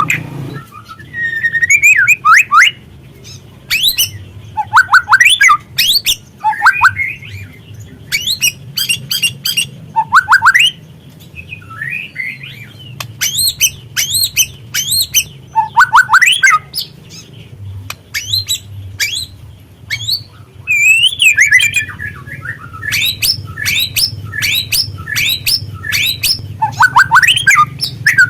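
White-rumped shama (murai batu) calling in repeated bursts of fast chattering and harsh rattling notes mixed with short sweeping whistles, with brief pauses between bursts.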